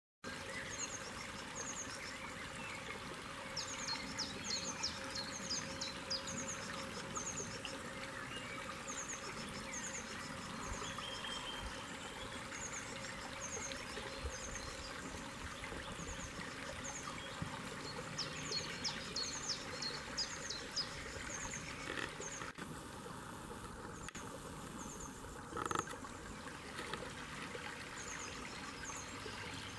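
Small stream trickling and splashing over stones, with a bird repeating short, high, down-slurred calls in quick runs. There is one brief louder sound about three-quarters of the way through.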